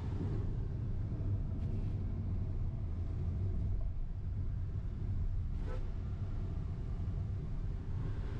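Steady low rumble of engine and road noise inside the cabin of a Hyundai Alcazar diesel SUV cruising on a highway.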